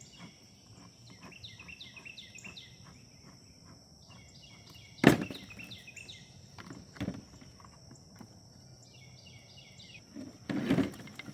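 Handling knocks and light clicks from the plastic parts of a backpack leaf blower being fitted together, with one sharp knock about five seconds in and a lighter one about two seconds later. Birds sing repeated falling chirps in the background over a steady high-pitched hum.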